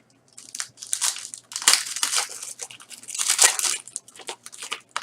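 A trading-card pack wrapper being torn open and crumpled by hand, in a series of irregular crinkling and tearing bursts.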